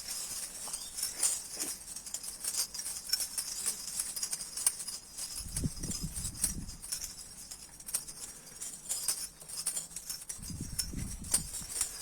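Kash pigeons at close range: a steady crackle of light clicks and scratches, with two low pigeon coos, one about six seconds in and one near eleven seconds.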